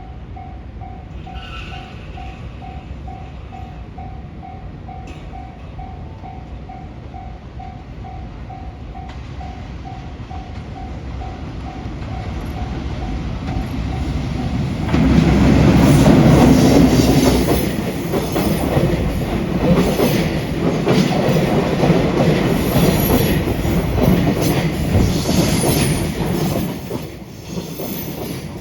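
Level crossing warning bell ringing in an even pulse, about two strokes a second, while a freight train approaches. About halfway through, a JR Freight EF210 electric locomotive hauling two Koki 200 container wagons passes over the crossing; this is the loudest part, with wheel and rail noise and a run of knocks from the wheels. The noise drops away near the end.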